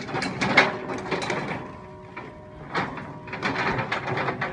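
Hand pallet truck rolling over a concrete floor while the steel cage of gas cylinders it carries rattles and clanks, in two spells of clatter with a quieter stretch in the middle.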